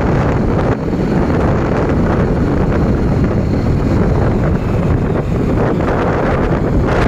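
Loud, steady wind buffeting the microphone of a moving motorcycle, with rumbling road and vehicle noise underneath.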